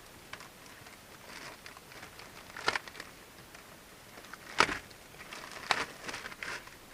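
A cabin air filter and its packaging being handled: light rustling with a few sharp plastic clicks and knocks, the loudest about four and a half seconds in.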